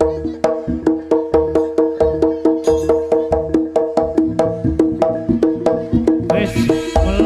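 Jaranan gamelan accompaniment: struck pitched percussion playing an even run of notes about four a second over drum beats. A brighter, louder layer joins near the end.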